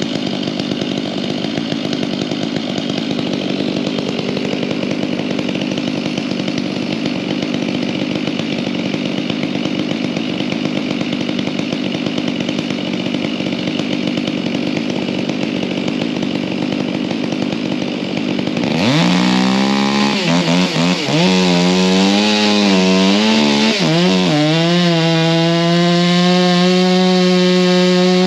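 Chainsaw engine running at a steady pitch. About two-thirds of the way through, the sound jumps suddenly louder and closer, and the saw's pitch revs up and sags again and again as it works through the wood.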